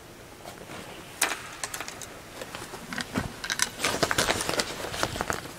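Movement noise as people start walking: a quick, irregular run of small clicks and rustles, sparse at first and denser from about halfway through.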